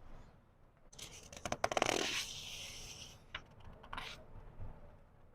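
A book page being turned slowly: a crisp paper rustle with fine crackling starts about a second in and lasts about two seconds, then two softer brushes of paper as the page settles.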